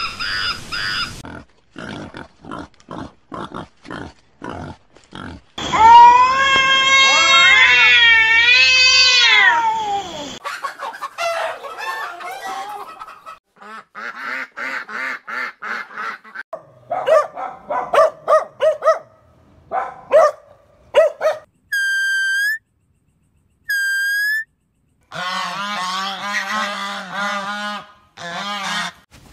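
A string of separate farm animal calls cut one after another, mostly honking waterfowl. There is a run of clicks early on, a loud long gliding call in the first third, and two identical short rising squeaks about two seconds apart after the middle.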